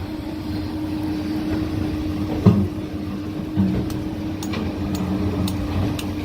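Heavy excavator's diesel engine running steadily with a held low hum, with a short knock about two and a half seconds in and a lighter one a second later.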